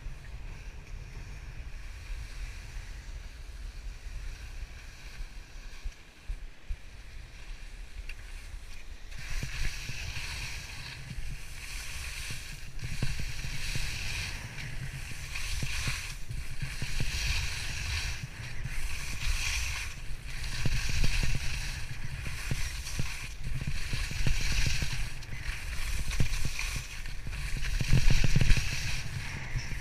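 Wind rumbling on the microphone, then from about nine seconds in the hiss and scrape of skis sliding over snow, rising and falling with each turn about once a second.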